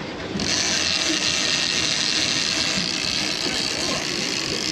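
Big-game fishing reel's clicker ratchet screaming steadily as a fish pulls line off the spool, starting about half a second in, over the low rumble of the boat's engines and wake.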